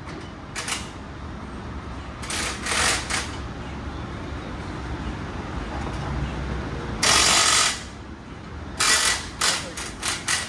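Pneumatic air tool in short bursts: one brief burst, a quick cluster, a longer burst of under a second, then several rapid bursts near the end, over a steady low rumble.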